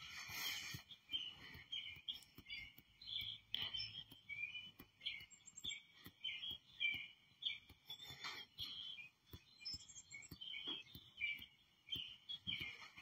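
Many small birds chirping in a continual stream of short, quick, overlapping notes, played faintly from a bird video through a monitor's speakers.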